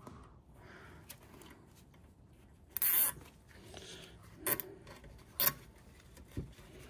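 Plastic zip ties pulled tight through their ratcheting heads to hold a new oil pan gasket in place: one rasping zip about three seconds in, then two shorter ones.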